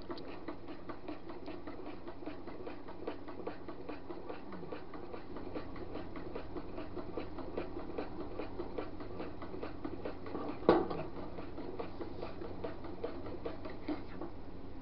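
A utensil stirring liquid soft plastic in a small metal pot, making steady, rapid ticking and scraping against the pot, with one louder knock about two-thirds of the way through.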